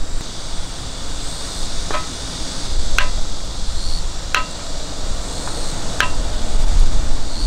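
Wind rumbling on the microphone, with four sharp ticks or taps that each ring briefly, about a second apart.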